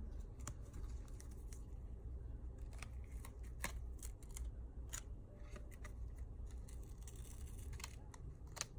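Faint, irregular small clicks and scrapes of a metal pry pick working through the adhesive foam under a phone's back glass.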